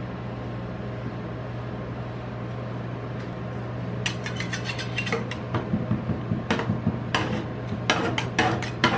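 Metal spatulas tapping, scraping and chopping on the steel cold plate of a rolled-ice-cream machine, starting about four seconds in as fruit is chopped into the cream base, with quick irregular clicks that grow busier. Under it the machine's refrigeration unit hums steadily.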